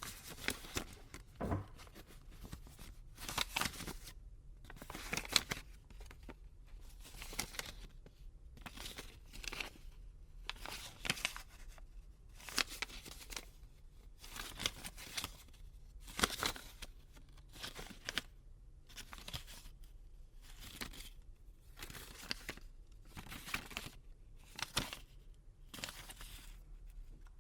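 Paper banknotes being handled: short crisp rustles and flicks of paper, repeated about once a second.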